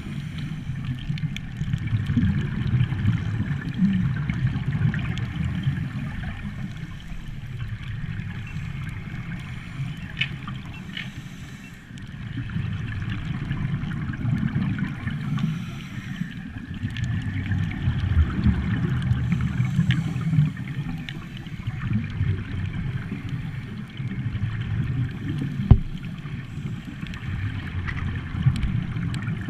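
Muffled underwater sound through a dive camera's housing: a low, swelling rumble of moving water and scuba bubbles gurgling, with scattered small clicks. One sharper knock comes near the end.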